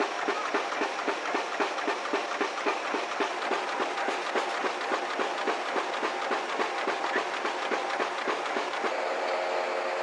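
Banknote printing machinery running, a steady mechanical clatter with an even beat of about four a second as sheets of $100 notes pass through. Near the end the beat fades into a steadier hum with a held tone.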